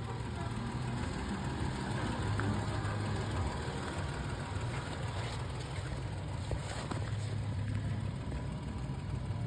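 Car driving along, its engine and road noise a steady low rumble heard from inside the cabin.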